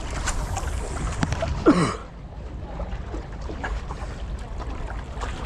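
Steady low rumble of a boat engine running nearby, with a brief cry whose pitch falls, about two seconds in.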